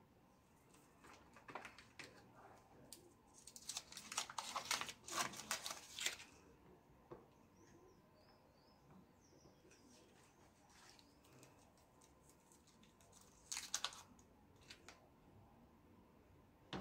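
Plastic snack wrappers crinkling in irregular bursts as biscuits and sweets are unwrapped and handled, densest a few seconds in and again briefly near the end.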